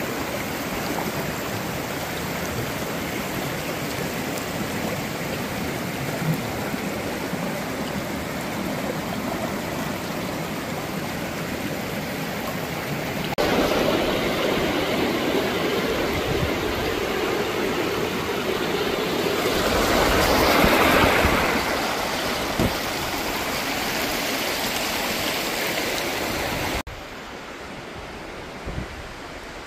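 Shallow creek water rippling and babbling over rocks in a steady wash. It gets louder about halfway through and falls away suddenly near the end.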